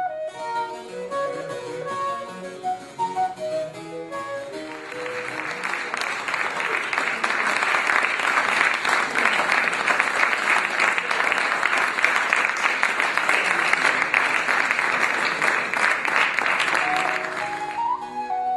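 Harpsichord playing the last bars of a piece. About four and a half seconds in, audience applause takes over and lasts about thirteen seconds. Just before the end, a wooden baroque transverse flute starts the next piece with the harpsichord.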